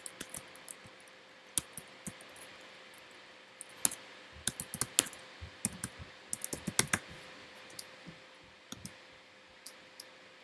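Typing on a computer keyboard: scattered keystrokes, with quicker clusters about four and about six to seven seconds in.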